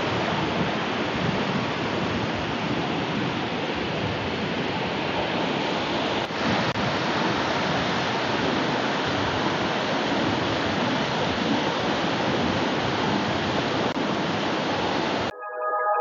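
Waterfall: a steady, even rush of falling water. It cuts off suddenly near the end, where music starts.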